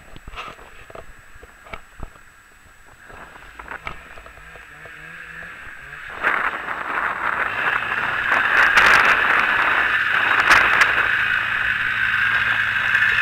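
Snowmobile engines running: for the first few seconds only faint engine sound with a few scattered knocks and clicks, then about six seconds in a loud rushing noise comes up with a steady low engine drone under it.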